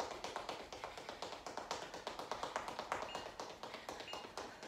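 Rapid, even patter of sneakers tapping on a tile floor in a fast-feet running-in-place drill. Two short high beeps about a second apart come near the end.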